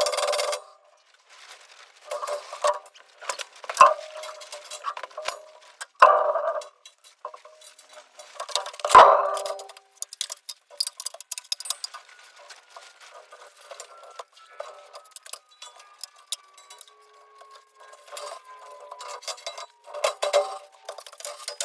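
Intermittent metallic clinks and knocks, with a few louder ringing strikes among lighter clicks.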